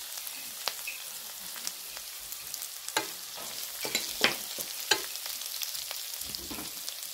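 Cut green chillies sizzling in hot olive oil over high heat while a wooden spatula stirs them, with a few sharp scrapes and taps of the spatula against the pan.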